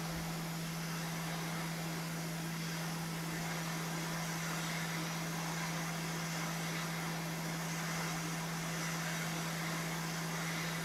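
Hot-air rework station blowing at full airflow: a steady hiss of air over a constant low hum from its blower. The nozzle is heating a surface-mount microcontroller to melt the solder on its pins for removal.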